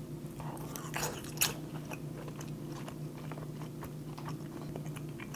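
A person chewing a mouthful of raw striped marlin sashimi: small wet mouth clicks and smacks over a faint steady low hum.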